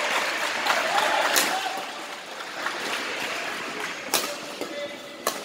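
Badminton rackets striking a shuttlecock during a doubles rally: sharp cracks about four times, two close together near the start and two later, with short squeaks between them.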